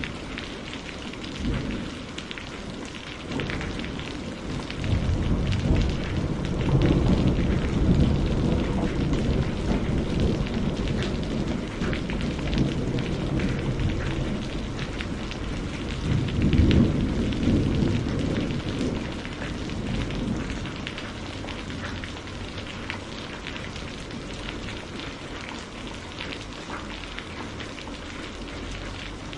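Steady rain falling, with a low rumble of thunder rolling in about five seconds in and a louder rumble around seventeen seconds in.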